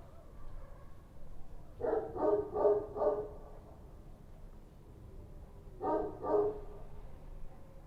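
Street dog barking: a quick run of four barks, then two more a few seconds later, over a steady low background rumble.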